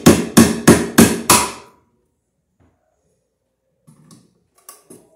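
Hammer striking at a steel junction box on a ceiling joist: five quick, ringing blows about three a second that stop after a second and a half, then a few faint clicks and taps near the end.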